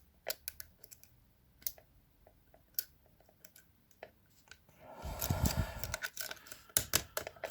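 Light clicks and ticks of a lock pick and tension tool working the wafers of a bicycle U-lock's wafer core, with a louder stretch of scraping about five seconds in.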